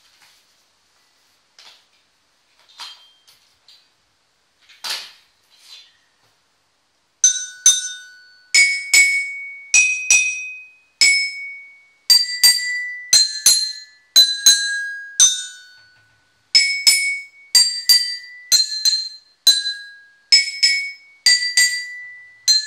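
Toy xylophone with coloured metal bars, struck one note at a time with a wooden mallet: single bright ringing notes at different pitches, about two a second with short pauses. Only a few soft taps and rustles come before the playing starts about seven seconds in.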